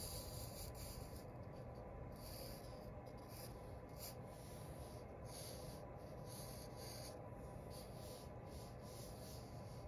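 Black fine-point marker drawing on paper: faint felt-tip strokes that come and go in many short strokes with brief pauses between them.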